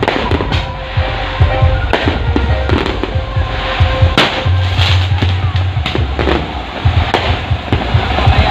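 Firecrackers and fireworks banging in rapid, irregular bursts over loud, bass-heavy music from a truck-mounted sound system.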